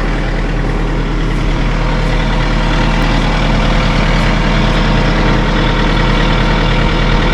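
Tractor engine idling steadily, keeping the backhoe's hydraulics ready.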